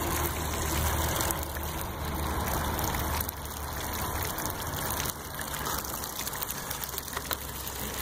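Small electric pool pump running steadily with a low hum, while water gushes from the solar-panel feed line into the pool. The temperature controller has switched the pump on to flush the panels' hot water into the pool.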